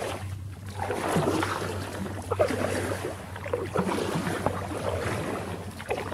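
Water splashing and lapping against an inflatable kayak as it moves on the river, irregular and gurgling, with wind on the microphone and a steady low hum underneath.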